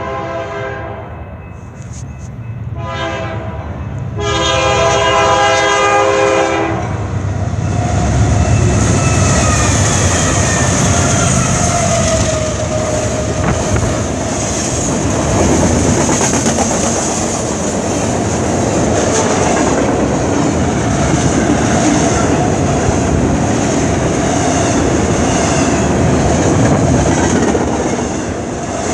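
Nathan K3LA five-chime air horn on a GE Dash 9 diesel locomotive: the end of one blast, a short blast about three seconds in, and a longer blast lasting about two seconds. Then the train passes close by with a loud steady rumble and the clatter and hiss of wheels on rails.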